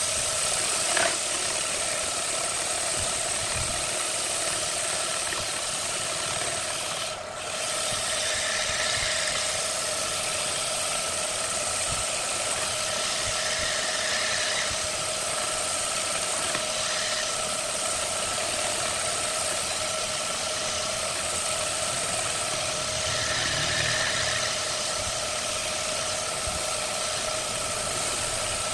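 Electric wood lathe running steadily with its motor whining, while sandpaper held in a gloved hand hisses against the spinning redwood bowl. The sound dips briefly about seven seconds in.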